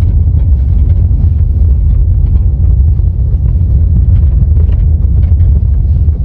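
Steady road and cabin rumble of a 2023 Hyundai Creta on the move, with irregular light rattling clicks from the rear: the trunk parcel shelf knocking, which the owner found to cause most of the noise.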